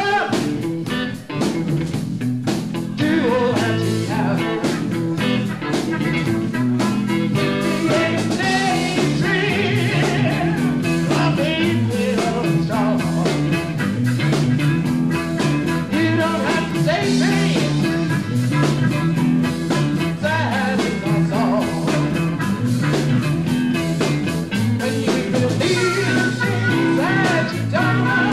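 Blues band playing live, electric guitars over bass and drums with a steady beat.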